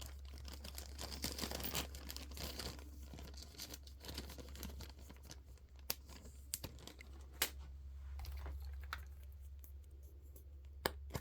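Packaging being handled and torn open by hand: a dense crinkling and tearing rustle for the first few seconds, then lighter rustling with a few sharp clicks and taps, over a low steady hum.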